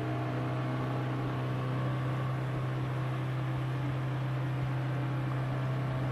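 A boat's engine running at a steady speed, a constant low hum that does not change in pitch, under an even rush of water and wind.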